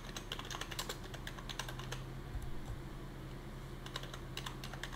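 Typing on a computer keyboard: quick, irregular keystrokes in clusters, with a short pause a little past halfway before the typing resumes. A faint steady low hum runs underneath.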